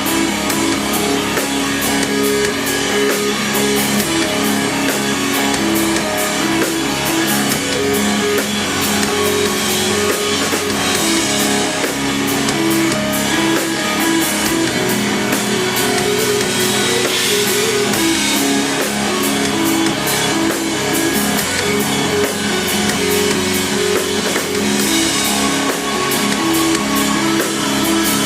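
Instrumental rock band playing live: electric guitars and bass over a steady drum kit beat.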